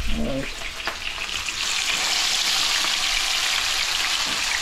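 Fish frying in hot oil in a pan, a steady sizzle that swells louder about a second and a half in.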